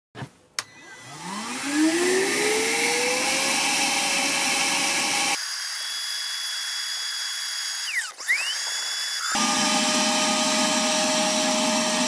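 Parkside PWDA 20-Li A2 cordless wet/dry vacuum switched on with a click, its motor winding up over about two seconds to a steady whine with a rush of air as it sucks water up through the hose. About halfway through, the sound changes abruptly for a few seconds to a thinner, higher whine without the low rush, then the steady running sound returns.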